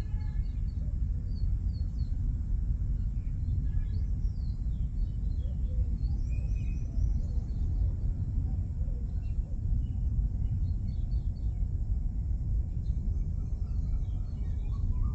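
Outdoor ambience: a steady low rumble with scattered faint bird chirps and calls, a few more calls near the end.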